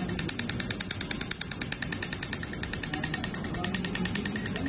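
Q-switched Nd:YAG laser handpiece firing rapid pulses over skin coated with carbon paste, each pulse a sharp snap, about ten a second, as the carbon layer is blasted off in a carbon laser peel.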